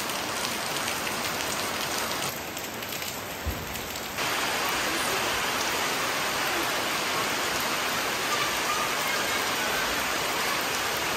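Steady rain falling in a dense hiss, a little quieter for a couple of seconds about two seconds in.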